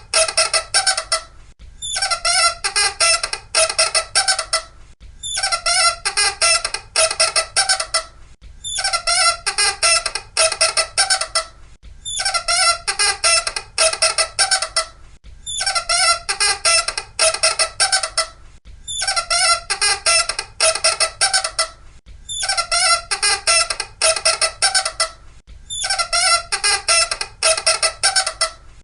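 Loud, high-pitched squeaking in repeated bursts, each about two and a half seconds of rapid squeaks, coming back about every three and a half seconds, nine times over, like a looped recording.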